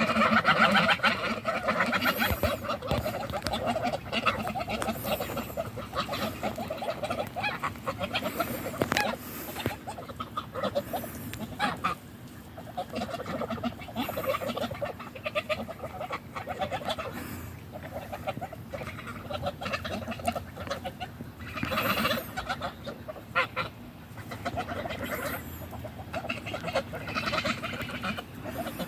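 A gaggle of domestic geese honking and chattering while they feed, loudest in the first second or so, with short clicks among the calls.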